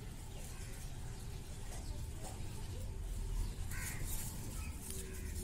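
A short harsh animal call about four seconds in, over a steady low rumble.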